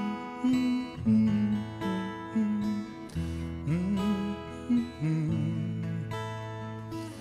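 Two acoustic guitars playing together, strummed and picked, with a few sliding notes.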